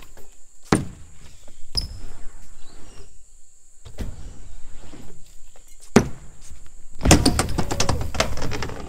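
BMX bike riding ramps: tyres rolling on the ramp surface, with separate landing knocks about a second apart and a sharp knock about six seconds in. Near the end the rider bails and the bike clatters and scrapes across the ramp.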